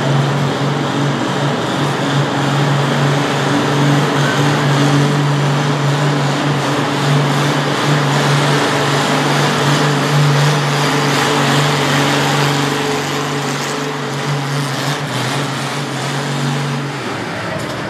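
Antique Oliver tractor's engine pulling a weight-transfer sled at full throttle: a loud, even drone that holds one pitch throughout, then drops away about a second before the end as the pull finishes.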